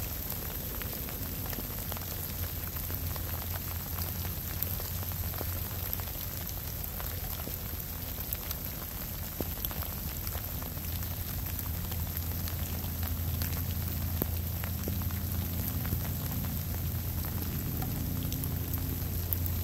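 Steady rain falling, a dense patter of many small drop ticks over a constant hiss, with a steady low rumble underneath.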